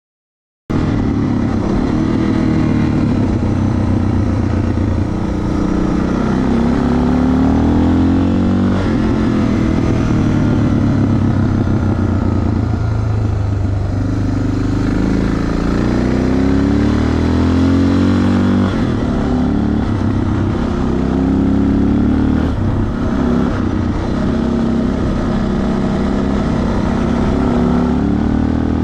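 Suzuki DR650's single-cylinder four-stroke engine running while the bike is ridden, its pitch rising and falling several times as the throttle opens and closes. The sound cuts in abruptly just under a second in.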